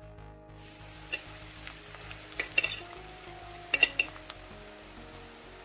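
Grated coconut frying in hot oil in a non-stick pan: a steady sizzle starting about half a second in, with a few short knocks and scrapes of stirring against the pan.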